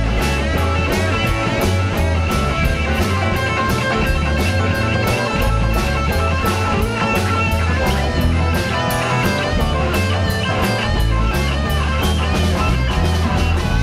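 Live rock band playing: electric guitar, bass guitar and drum kit, with a steady beat on the cymbals and a heavy bass line.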